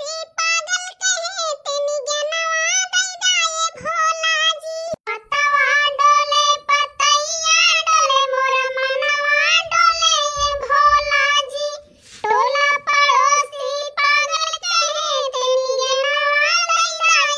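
A single high-pitched voice sings a song in long held phrases, with two short breaks.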